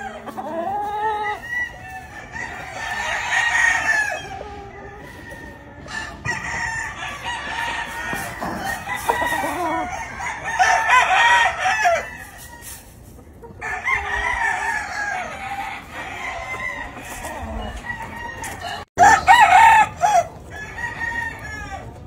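Several roosters crowing, one call after another and overlapping, with clucking between the crows; the loudest crow comes near the end.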